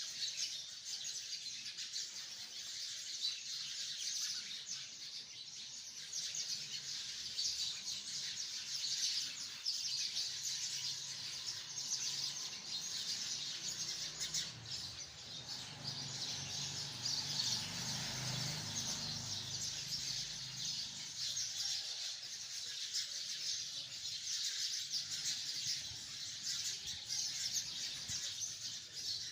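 A large flock of sparrows chirping continuously in a dense, overlapping chatter. A low rumble swells and fades in the middle.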